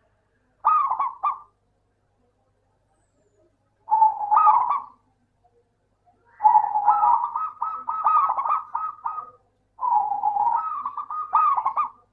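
Zebra dove (perkutut) cooing song: four phrases of quick, stuttering coos with short silences between them. The first two phrases last about a second each; the last two are longer, at two to three seconds.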